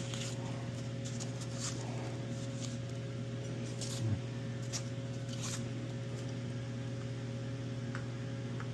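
Steady low electrical hum, with scattered light rustles and clicks of a parcel and its paperwork being handled.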